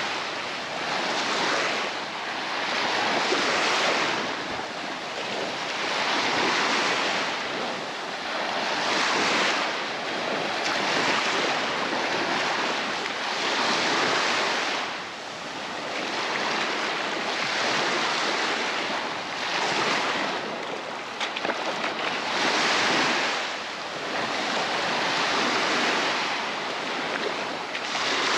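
Baltic Sea surf breaking on a sandy beach: a steady rushing wash that swells and ebbs every few seconds as the waves come in.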